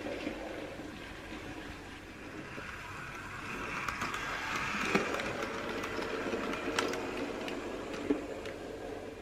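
Model train running on the layout track, a Sentinel diesel shunter hauling a short rake of wagons. It makes a steady rolling and motor hum that grows louder as the train passes about four seconds in and then eases, with three sharp clicks from the wheels on the track.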